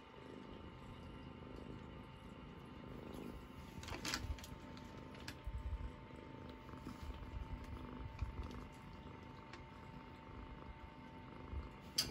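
Munchkin kitten purring, an uneven low rumble, with a sharp click about four seconds in and another near the end.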